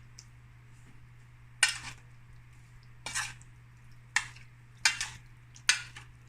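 Kitchen utensils clinking against dishware: five sharp strikes about a second apart, over a steady low electrical hum.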